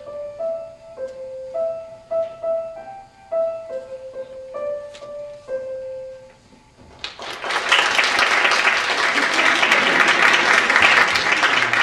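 Grand piano playing a simple melody of single notes, ending on a held note that fades about six seconds in. Then an audience applauds steadily.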